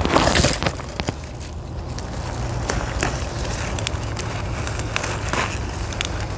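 Young canola (rapeseed) stems snapped off by hand, a crisp snap again and again, with a brief rustle at the start and a steady low rumble underneath.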